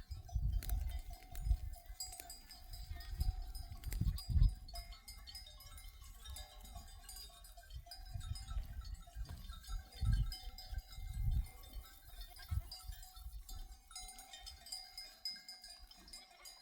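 Bells worn by a flock of goats and sheep ringing with steady, overlapping tones as the animals move, over irregular low rumbles and thumps.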